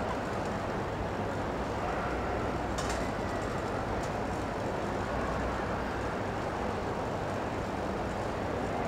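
Steady hum of a large indoor arena with a quiet watching audience, with a faint click about three seconds in and another a second later.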